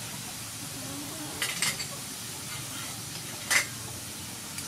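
Beef sizzling steadily in a wok, with a few short utensil clicks against the pan, the sharpest about three and a half seconds in.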